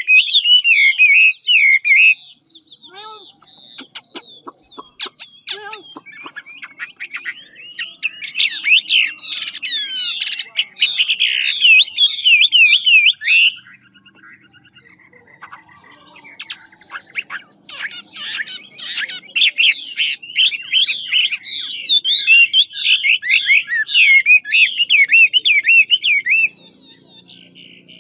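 A Chinese hwamei sings in long runs of rapid, sliding whistled notes. It pauses twice, with softer scattered notes, before it resumes.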